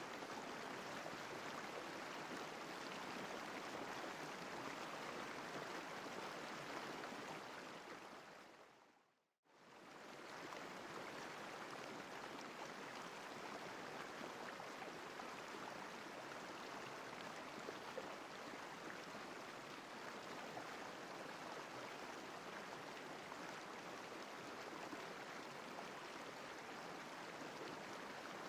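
Steady rushing of flowing river water, an even stream-like hiss. About nine seconds in it fades out to silence and fades back in a moment later.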